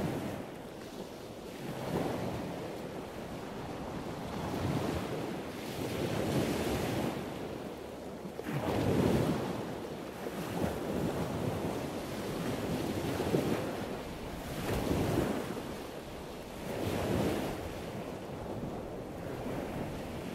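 Surf washing onto a beach, the rush of water swelling and fading every couple of seconds, with wind buffeting the microphone.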